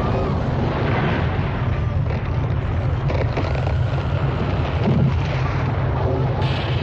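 Film sound effects of an earthquake aftershock: a continuous deep rumble with scattered crashes of falling debris.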